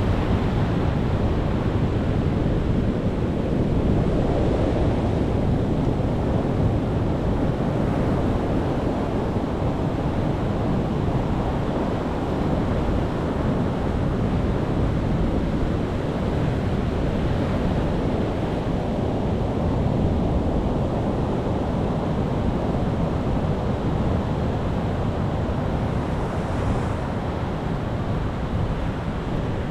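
Pacific Ocean surf breaking on rocks, a continuous churning wash of waves that swells and eases gently, with some wind rumble on the microphone.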